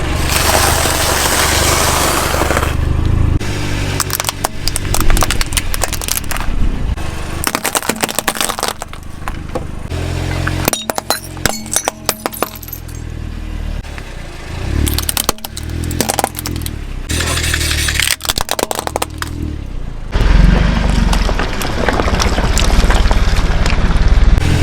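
A car's tyres rolling over and crushing brittle objects: irregular crunching, cracking and snapping over the low rumble of the engine, in several short sections that change abruptly.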